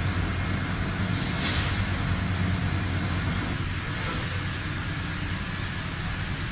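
Industrial machinery running with a steady low hum. There is a brief hiss about one and a half seconds in, and a thin high whine sets in about four seconds in.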